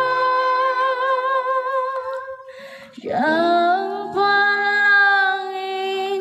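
A woman singing long held notes with vibrato. About two and a half seconds in she breaks for a breath, then slides up into another sustained note.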